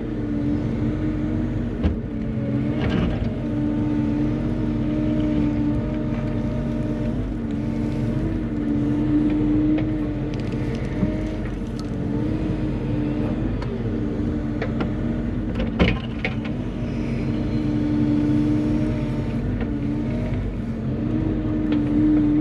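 Bobcat E35 compact excavator's diesel engine running steadily under hydraulic load as it digs dirt, its pitch dipping and recovering as the arm and bucket work. Two sharp knocks stand out, about two seconds in and again near the last quarter.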